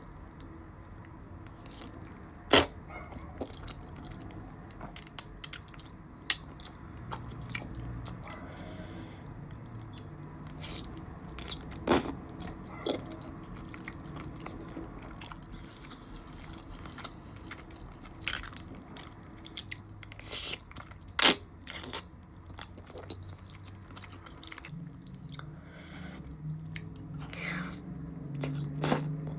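Close-miked mukbang eating of a seafood boil: steady chewing and biting with frequent short clicks and crunches, and now and then a much louder sharp snap.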